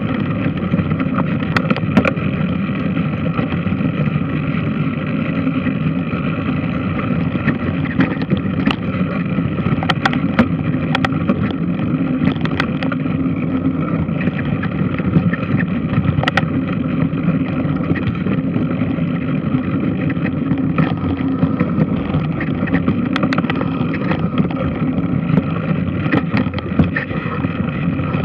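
Large washing machine running with a steady mechanical rumble, with scattered sharp clicks and knocks.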